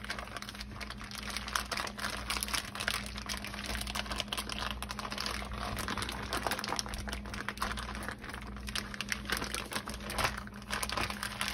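Plastic zip-top bag crinkling and crackling as hands squeeze and knead flank steak in liquid marinade, a dense, irregular run of small crackles as the marinade is worked over the meat.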